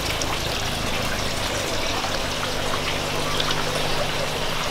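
Steady trickle and splash of running water in a backyard aquaponics system, with a faint steady low hum underneath.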